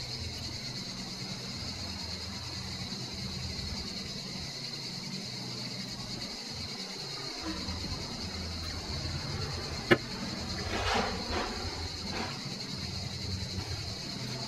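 Handling sounds of small plastic parts and wires being fitted into a 3D-printed holder. There is one sharp click about ten seconds in and a few short scratchy rasps just after, over a steady faint hum and high hiss.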